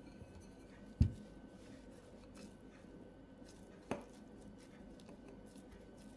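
Two knocks on a work table amid faint handling sounds: a dull thump about a second in and a lighter, sharper tap near four seconds.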